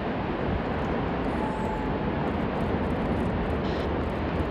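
Glacier calving: a steady rumbling noise as ice collapses off the glacier front into the water and churns up spray.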